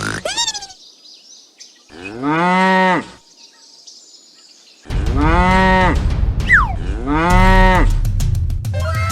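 Cows mooing: three long moos, each about a second, the first about two seconds in. A short high falling chirp comes between the second and third.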